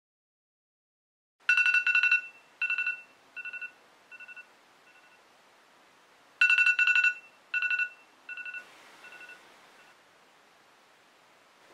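Electronic alarm beeping as a wake-up alarm: a quick cluster of loud, high beeps trailing off into quieter, spaced repeats, sounding twice about five seconds apart after a moment of silence.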